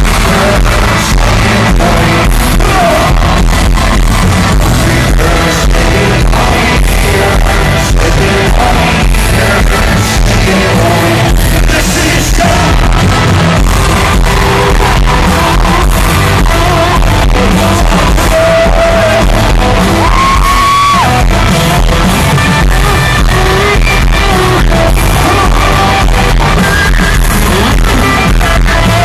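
A live band and lead singer performing loud amplified music in an arena, recorded from within the crowd.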